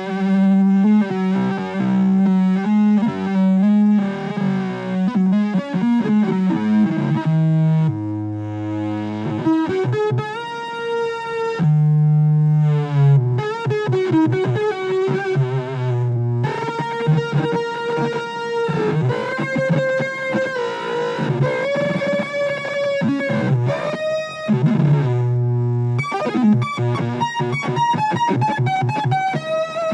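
Electric guitar played through a distortion effects pedal, giving odd, heavily processed notes that change often and sometimes slide in pitch.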